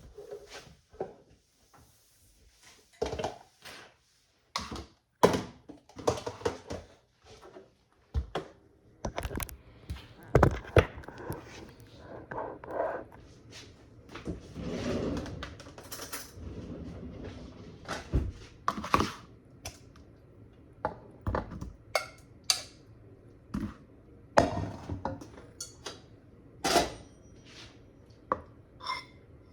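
Irregular clatter of dishes and utensils: scattered clinks and knocks, a few of them sharp and loud, with no steady rhythm.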